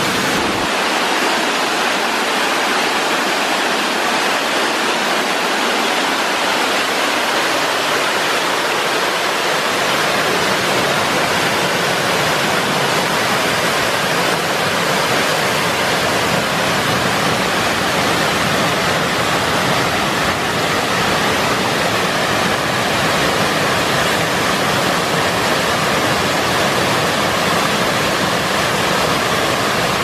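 Steady rush of a waterfall and the stream running over rocks, a constant loud hiss of falling water.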